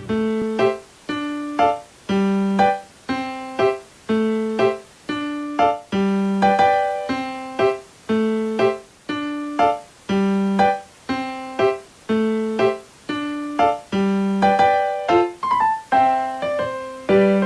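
Background music: a light piano or electric-piano tune of short, evenly paced notes, about two a second.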